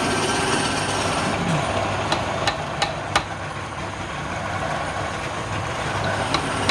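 Wood lathe running steadily with a low hum, and a few sharp clicks or knocks, several between two and three seconds in and one more near the end.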